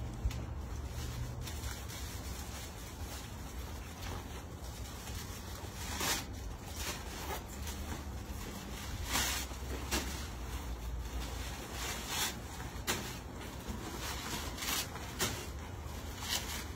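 Steady low rumble with scattered short rustles and clicks of clothing and packaging being handled.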